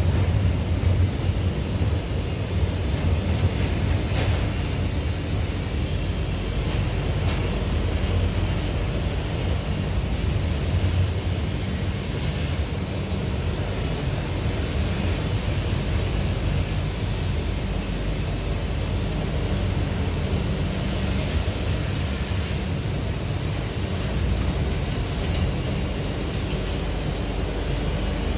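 Steady rumble and rush of a moving passenger train, heard from a window seat inside the coach.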